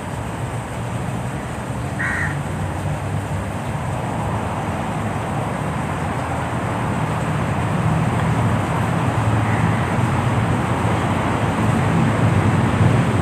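Steady rushing noise with a low rumble underneath, slowly growing louder, and a brief high chirp about two seconds in.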